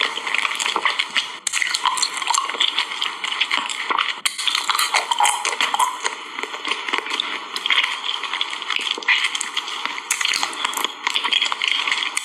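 Close-miked eating of jelly: wet squelching chews with a dense stream of small crackles and mouth clicks.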